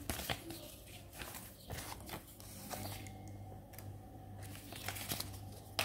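A paper instruction leaflet being handled and unfolded, with irregular rustling and a string of sharp paper crackles.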